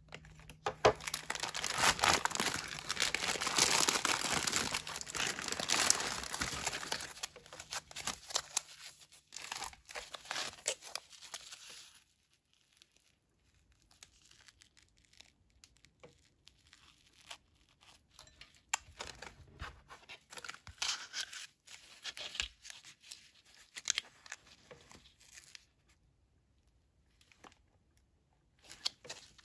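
Plastic and foil MRE packaging crinkling and rustling loudly as the double-bagged ration is opened and its contents pulled out. After about twelve seconds this gives way to quieter, intermittent rustling of a foil retort pouch being handled.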